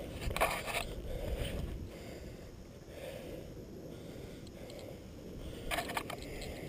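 Wind rumbling on the microphone, with two brief bursts of scraping and crunching, about half a second in and again near the end.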